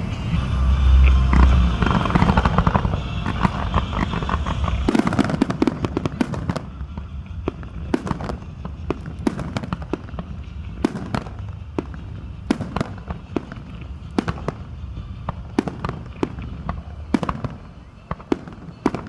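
Fireworks going off: a dense mass of booms and crackling for the first five seconds or so, then a run of separate sharp bangs and crackles, a few each second, getting fainter near the end.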